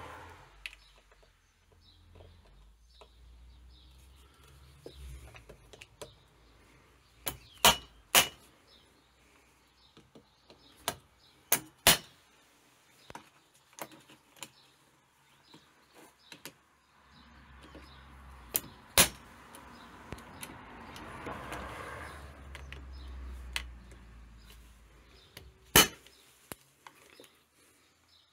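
Rubber mallet striking a hand impact driver set in the cheese-head screws of a Tomos moped engine casing, to break the screws loose without chewing them up. Sharp metallic knocks every few seconds, some in pairs, with tool-handling clatter between.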